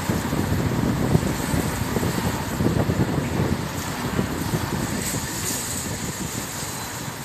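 Road noise of a car driving along a wet street, heard from inside the car: a steady low rumble with a faint hiss, easing slightly toward the end.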